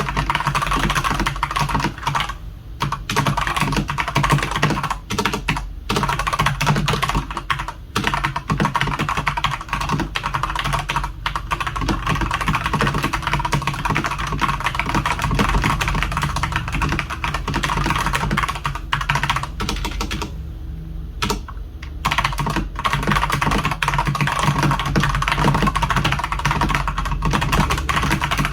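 Fast, continuous typing on a Redragon Sindri K671 mechanical keyboard with Outemu Red linear switches: a dense stream of key clacks, broken by a few brief pauses and one longer pause of about a second and a half roughly three quarters of the way through.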